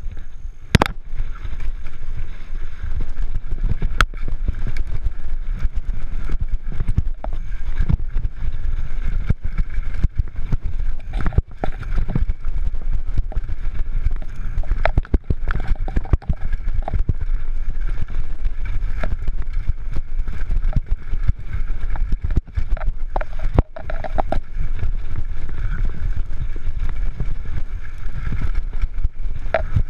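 Canyon Torque FRX downhill mountain bike ridden fast over a dirt trail: a steady low rumble of tyres and rushing air, broken by frequent knocks and rattles as the bike hits bumps and roots.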